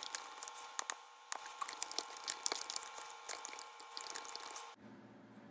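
Typing on a computer keyboard: irregular light key clicks that stop near the end.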